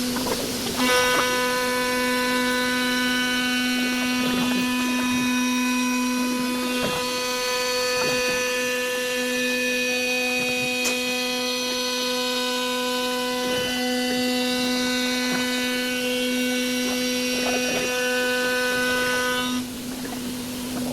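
CNC glass processing machine running, a steady motor whine of one pitch. A higher, brighter layer of the whine comes in about a second in and drops out near the end, while the low hum carries on.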